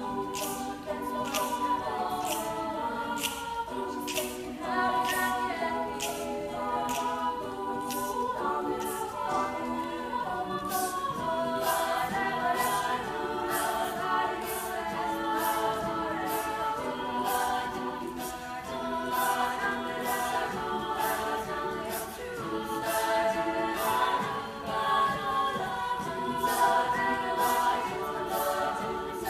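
Unaccompanied vocal group singing in close harmony, held chords changing every second or so, over a steady crisp percussive beat.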